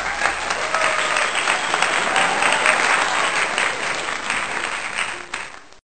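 Applause: a crowd clapping steadily, cut off suddenly near the end.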